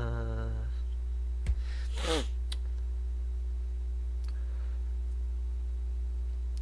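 Steady low hum throughout. A man's voice makes a short held 'mm' at the start and a falling hum about two seconds in. There are a few clicks, the sharpest a low thump about a second and a half in.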